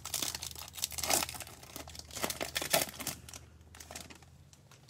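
Foil trading-card pack wrapper crinkling and tearing as it is ripped open and pulled off the cards, a dense crackle that thins out over the last second or so.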